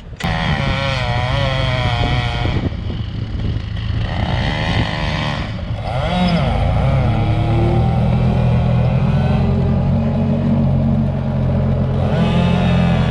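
An engine running loudly, rising in pitch about six seconds in and then holding steady.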